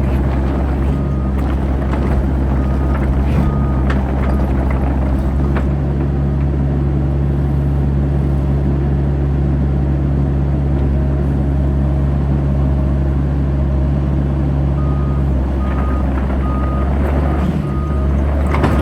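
Bobcat E85 crawler excavator's diesel engine running steadily under work, with its travel alarm giving short evenly spaced beeps near the start and again near the end as the machine tracks.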